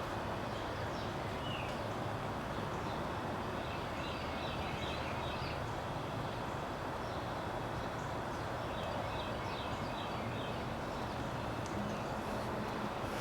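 Small birds chirping in a few short scattered bursts over a steady low rumble of outdoor background noise.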